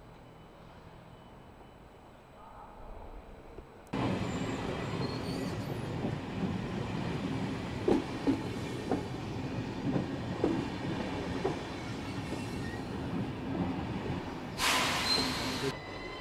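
Train running through a station, with rumbling and irregular wheel clacks over rail joints and points. It starts abruptly about four seconds in, after quieter background. A brief high hiss comes near the end.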